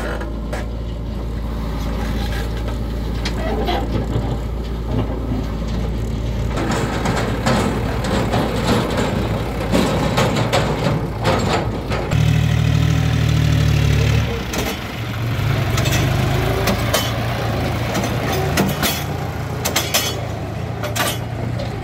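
Diesel tractor and backhoe loader engines running steadily, with scattered metallic clanks and knocks. The engine note changes abruptly a couple of times, about six seconds in and again about halfway through.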